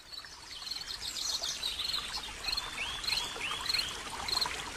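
Birds calling: a short high chirp repeated roughly every half second, with a run of four rising calls about three seconds in and scattered scratchy chatter behind.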